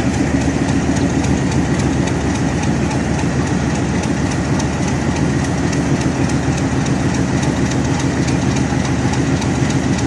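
Diesel locomotive idling while it stands at the platform: a loud, steady engine drone that does not change.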